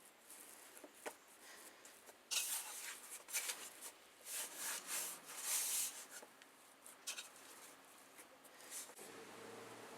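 A run of short, scratchy scraping sounds, densest in the middle, with a few sharp clicks.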